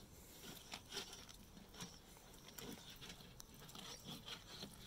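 Faint, irregular soft rustles and short pulling sounds of a scalded chicken being plucked by hand, the wet feathers coming away in handfuls.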